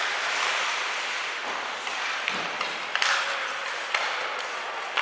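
Ice hockey play in a rink: a steady hiss of skates on ice and arena noise, with several sharp clacks of sticks and puck.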